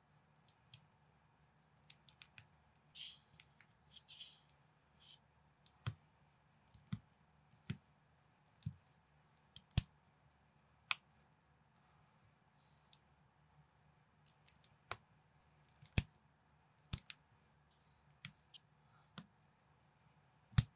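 Plastic building bricks handled and pressed together by hand: sharp, irregular clicks roughly once a second as pieces snap onto studs, with two brief scraping rustles about three and four seconds in.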